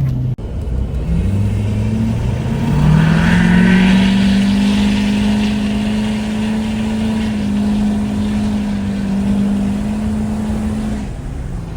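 Diesel pickup engine accelerating under hard throttle, its pitch climbing over the first few seconds, then holding high and steady before easing off near the end; the hard throttle is making it blow black smoke.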